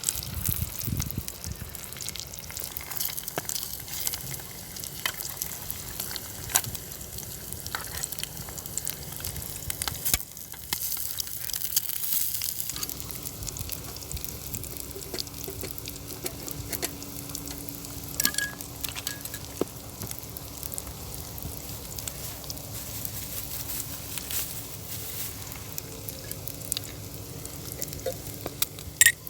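Food sizzling and frying in a pan, a steady crackling hiss with scattered sharp pops. A faint low hum joins a little before halfway, and there is one sharp pop near the end.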